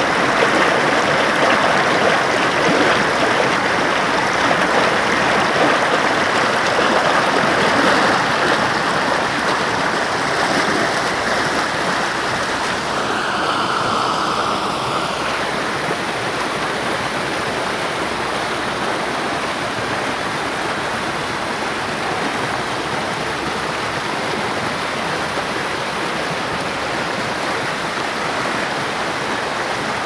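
Stream rapids: fast water rushing and churning over rocks in a steady rush, which grows a little quieter and softer about halfway through.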